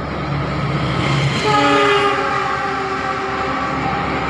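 Diesel locomotive horn sounding one long blast, starting about a second and a half in and fading out about two seconds later, over the steady low rumble of a container freight train.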